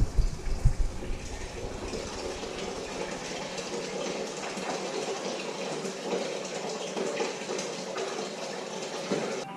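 Steady scratchy hiss of sanding on a car's rear spoiler, with a few low knocks in the first second.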